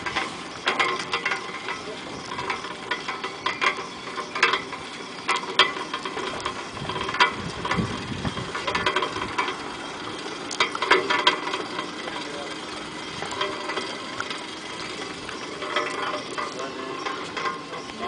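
A steel wire rope working against the ferry's steel post under a wooden lever, giving irregular metallic clicks, knocks and creaks.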